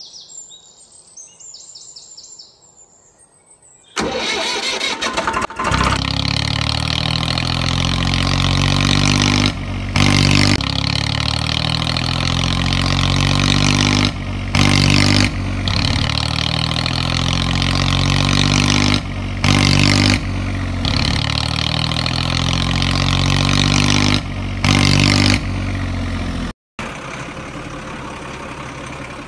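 Engine-running sound effect dubbed over toy vehicles, starting loud about four seconds in and repeating as a loop about every five seconds, each repeat marked by a brief gap and a louder rev. Near the end it cuts to a different, steadier engine sound.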